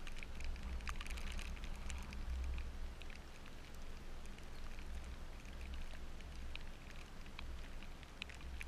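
Steady rain with scattered drops ticking sharply close by, over a low steady hum.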